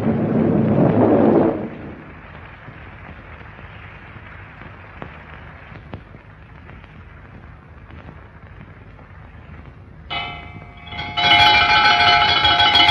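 Old film soundtrack: a loud swelling rumble in the first second and a half fades into a steady hiss with a few faint clicks, and about ten seconds in a background-score chord of held notes comes in and grows loud.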